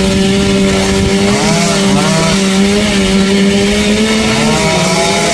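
Chainsaw engine running steadily at high revs while sawing a tree, its pitch sagging slightly near the end.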